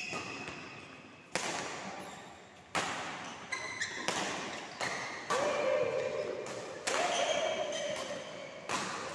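Badminton rackets striking a shuttlecock in a rally, about seven sharp hits one to two seconds apart, each ringing out in the hall's reverberation.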